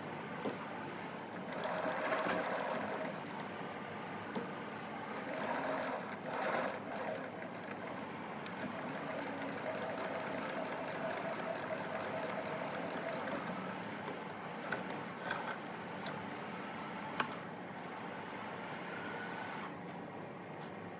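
Electric sewing machine running, stitching in a few runs of several seconds with a steady motor hum, then stopping about two thirds of the way through. A few light clicks from handling follow.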